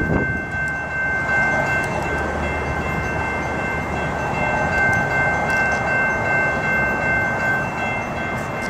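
Railroad crossing warning bell ringing steadily while the crossing lights flash and the gate arm rises, over a continuous low rumble. The bell fades near the end.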